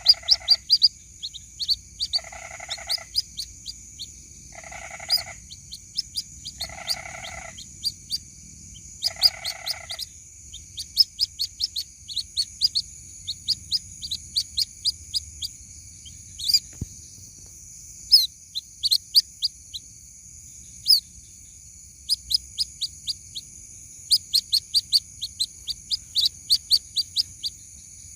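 White-breasted waterhen chicks calling: rapid runs of short, high peeping chirps, repeated throughout. In the first ten seconds a lower pitched call sounds five times, about every two seconds, over a steady high whine.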